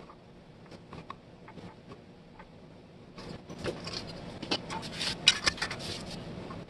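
Metal clicks, clinks and scrapes of a screwdriver and loose parts on an antique cast-iron label paster being taken apart. Sparse at first, then busier and louder from about three seconds in, with the sharpest knock a little past the middle.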